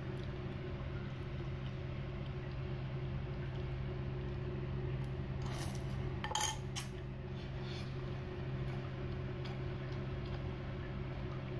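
Metal fork clinking and scraping against a ceramic bowl of noodles: a short cluster of clinks about six seconds in, one of them ringing briefly, over a steady low hum.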